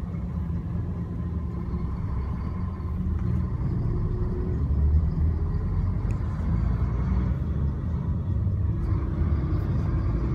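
Steady low rumble of a moving car heard from inside the cabin: engine and tyre noise on the road.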